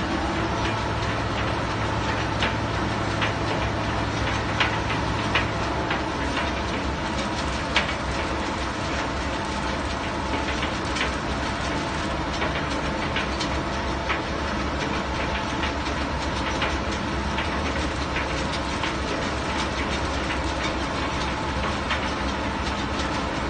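Heavy diesel engine of construction machinery running steadily, with sharp clanks now and then from steel crawler track shoes and rigging being handled.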